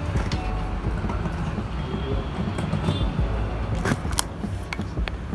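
Steady low background rumble, with a few sharp clicks about four seconds in from the phone and charger being handled.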